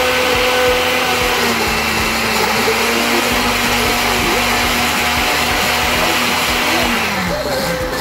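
Countertop blender running at speed, puréeing chunks of watermelon with a steady motor whir. Near the end it is switched off and the motor winds down.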